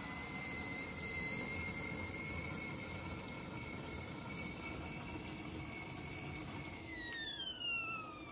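Stainless-steel whistling kettle on a portable gas camping stove whistling at the boil: one steady high tone with overtones. About seven seconds in, the whistle slides down in pitch and fades as the burner is turned off.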